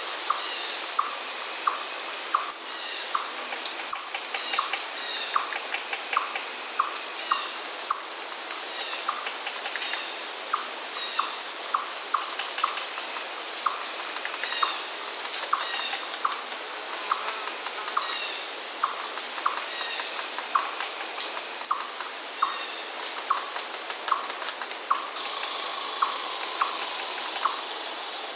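Steady high-pitched chorus of insects such as crickets, with a short lower call repeating about twice a second over it.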